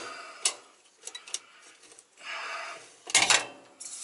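Metal tool clinks and clanks from a filter wrench and bar being worked against a stuck air dryer filter cartridge, with a cluster of louder clanks about three seconds in.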